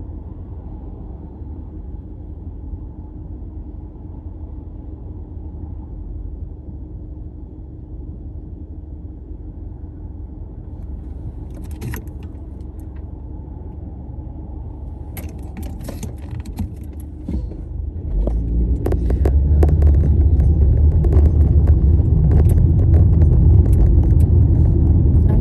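Steady low rumble of a car interior while driving. A run of sharp clicks and rattles starts about halfway through, and the rumble grows much louder over the last several seconds.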